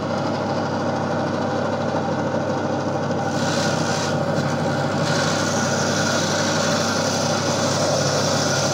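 Gryphon diamond bandsaw running steadily. About three seconds in, the blade starts cutting through the Lobophyllia coral's stony skeleton, adding a higher gritty hiss that breaks off for a moment and then carries on.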